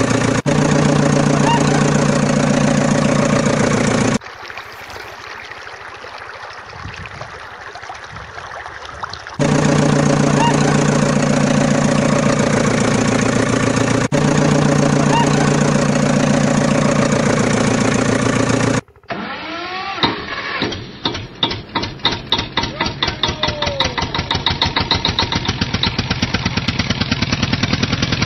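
Recorded engine sound spliced over the toy footage: a diesel-type engine idling steadily, dropping to a quieter low running stretch for about five seconds, then idling again. About two-thirds of the way through it cuts off, and an engine cranks and fires, its beat getting quicker.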